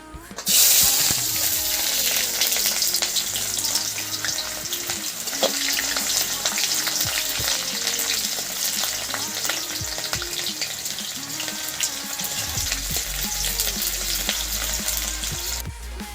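Food sizzling in hot oil in a cooking pan, starting suddenly about half a second in as it goes into the oil, and frying steadily until it stops near the end.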